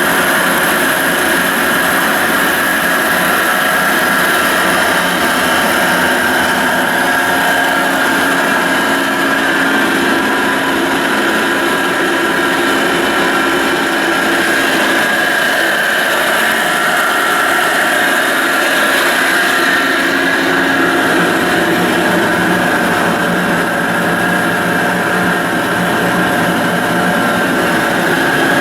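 Carlton Model 4A radial arm drill press running under power, a steady mechanical drone with a steady high tone over it.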